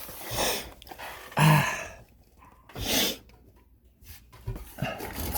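A man sneezing repeatedly in three short bursts, the loudest about a second and a half in, brought on by crawl-space dust setting off his allergies.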